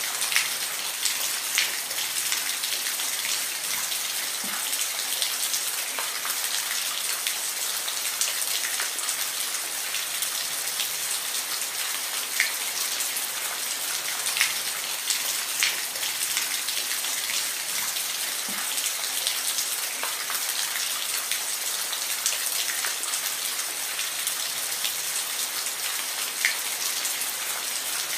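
Steady rain falling, a constant hiss with distinct individual drops striking a surface every second or so.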